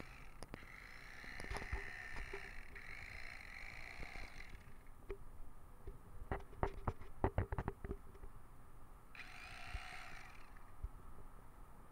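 Corded electric fillet knife running as it cuts into a large fish, its whirr coming in two stretches, with a quick run of sharp clicks between them.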